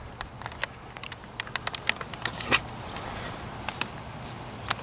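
Faint, steady hum of a small vehicle's engine running at a distance, with scattered sharp clicks close by.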